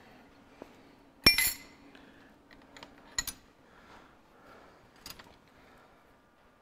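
Spanner clinking against the steel injector clamp and nuts on a Ferguson 23C diesel engine's cylinder head as they are undone: one sharp ringing clink about a second in, then a few lighter clicks.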